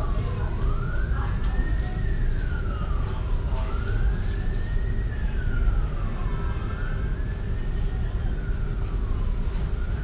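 Emergency vehicle siren wailing in slow, even sweeps, rising and falling about every three seconds, over a steady low rumble of traffic.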